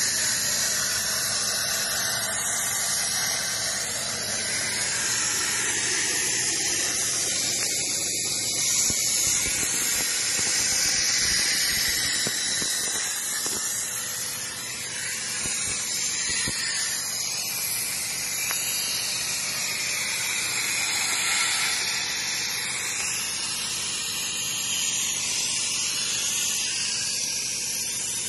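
CNC gantry cutting machine's torch cutting steel plate: a steady, loud hiss of the cutting jet that dips slightly for a moment midway.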